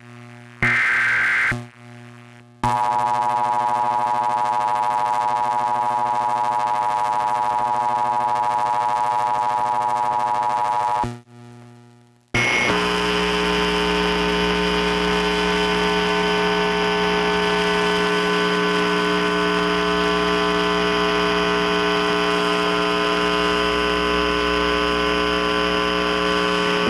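Emergency Alert System test tones: a short burst of the digital header data screech about half a second in, then a steady electronic attention tone for about eight seconds. After a brief gap, a harsher, buzzy steady tone runs until the spoken message begins.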